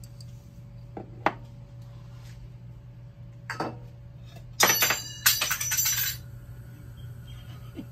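Kitchen utensils clinking against metal and glass: a couple of light clicks, then a loud run of ringing clinks lasting about a second and a half near the middle, over a steady low hum.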